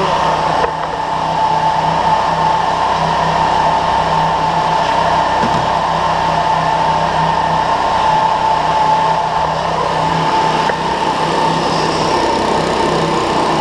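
Leaf blower running steadily: a held high fan whine over a lower steady hum, blowing air into a pulse jet engine.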